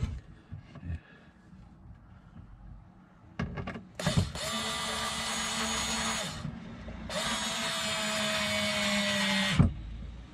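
Cordless drill-driver driving screws into a plywood panel in two runs of about two and a half seconds each, a motor whine with a light rattle. The pitch sags slightly through the second run as the screw bites, then cuts off suddenly with a knock.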